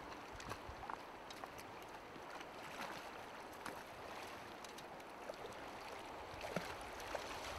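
Shallow, stony river flowing: a steady rush of water over stones, with a few faint clicks and small splashes.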